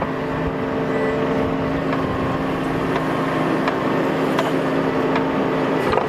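Bobcat mini excavator's diesel engine running at a steady speed while it digs in dense clay, with scattered sharp clicks and knocks over the engine sound.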